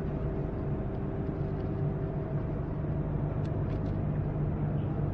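Passenger ferry's engines running under way: a steady low drone with even noise over it, heard on board. A fainter steady hum above the drone fades out a little over two seconds in.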